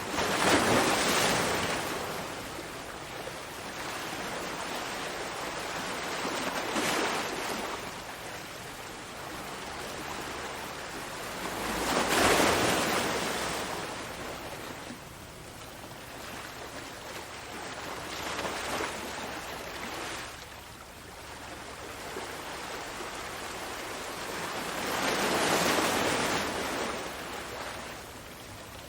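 Waves breaking and washing in, a swelling hiss every several seconds. The biggest breakers come near the start, about halfway through and near the end, with smaller ones between.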